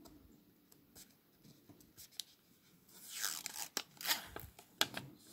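Plastic rustling and crackling from handling a new smartphone in its protective plastic film, in two short bursts about three and four seconds in, with a few light clicks between.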